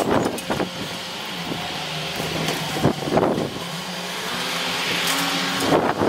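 Heavy demolition excavator's diesel engine running steadily under load, with sharp crunching knocks of debris being broken at the start, about three seconds in and near the end.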